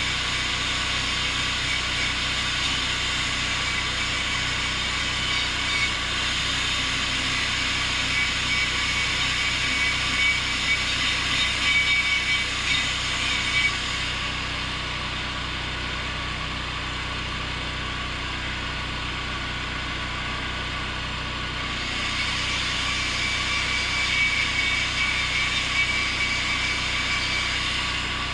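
Stick-welding arc on 6010 rod crackling and hissing as a bead is run on steel I-beam. It stops a little under halfway through and strikes up again for the last several seconds, over a steady low hum.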